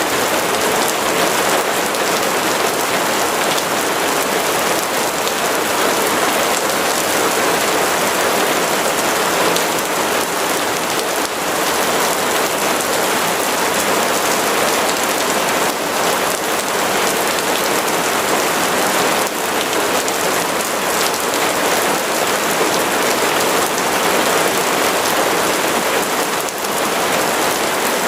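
Steady rain falling and pattering on surfaces, a dense even hiss with individual drops ticking through it.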